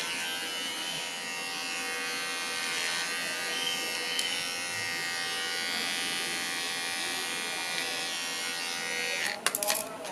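Cordless electric pet clipper running with a steady, fairly quiet hum while trimming the fur between a dog's paw pads. A few sharp clicks near the end as it is set down, after which the sound drops away.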